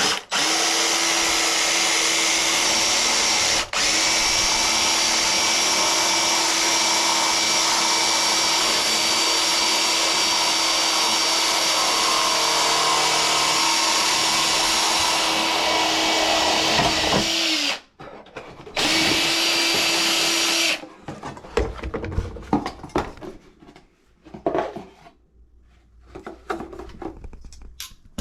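Electric drill running at a steady speed for about seventeen seconds, with a brief dip early on. It stops, runs again for about two seconds, and is followed by a few scattered knocks.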